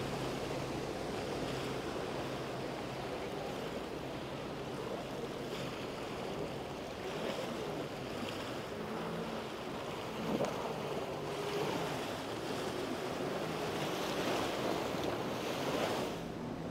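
Rushing water from a motor yacht's bow spray and wake, with wind buffeting the microphone and a low steady engine hum underneath.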